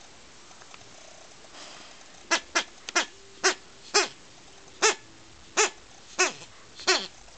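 Plush toy bee's squeaker squeaking about nine times in quick bursts as an Akita puppy bites and chews it, each squeak short and sliding down in pitch.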